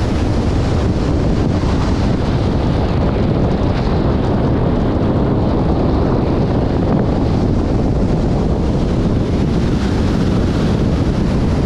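Steady, loud wind rushing over a camera microphone mounted on the bonnet of a moving car, with road rumble underneath.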